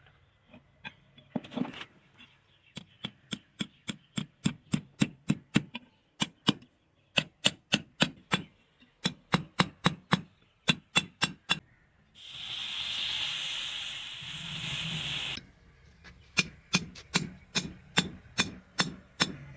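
Blacksmith's hammer striking metal on an anvil in a steady rhythm of about three blows a second, with a pause about halfway through filled by a loud hiss lasting about three seconds, after which the hammering resumes.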